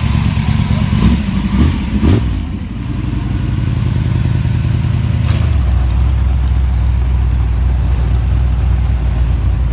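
Early-1960s Imperial's V8 engine running slow with a deep, steady rumble. A few sharp knocks come in the first two seconds, and the note settles lower about five and a half seconds in.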